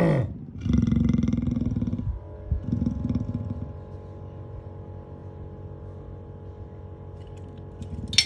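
Leopard growling, a low rough rumble that is loud for about the first two seconds, then weakens and fades to a quieter steady low rumble. A sharp click comes near the end.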